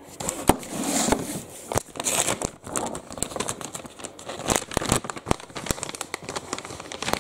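Metallised anti-static shielding bag crinkling and crackling in irregular bursts as it is handled and opened, with its sticker seal being peeled back.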